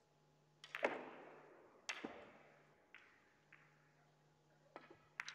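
Russian pyramid billiard balls clacking in a reverberant hall: a few sharp, separate knocks, each with an echoing decay. Near the end comes a quick pair of sharp clicks as the cue strikes the cue ball for the break.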